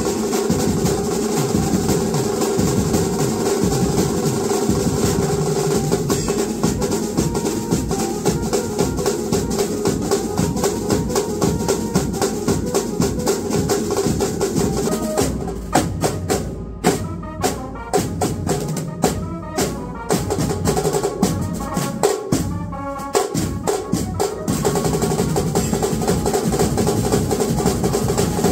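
Banjo band drummers playing snare drums and tom drums with a cymbal in a fast, dense beat, with a steady held tone behind the drums in the first half. About halfway through the beat drops to sparse separate drum hits for several seconds, then the full fast beat returns near the end.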